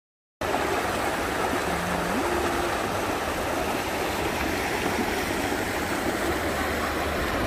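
Steady rush of flowing river water. It starts abruptly just under half a second in.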